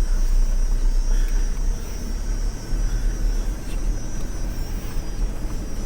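A four-wheel-drive vehicle driving slowly along a rough dirt road: steady engine and road noise with a heavy low rumble.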